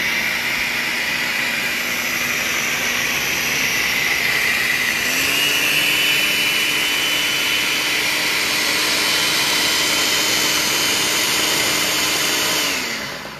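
Countertop blender running, puréeing tomatoes with vinegar and mustard into a vinaigrette. Its motor pitch steps up about five seconds in and winds down near the end.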